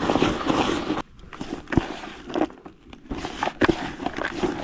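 Carp groundbait with sweetcorn and liquid booster being mixed by hand in a bucket into a wet mush: a crackly, gritty stirring with many small clicks, easing off for about two seconds in the middle and picking up again.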